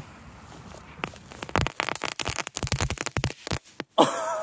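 Three crackling-ball fireworks going off together in dirt: a rapid, irregular string of sharp crackles and pops starts about a second in and lasts a couple of seconds, then stops.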